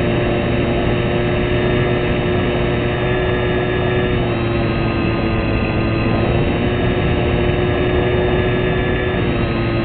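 Motor and propeller of a fixed-wing RC model plane in flight, heard from a camera on board: a steady drone whose pitch shifts slightly up and down a few times.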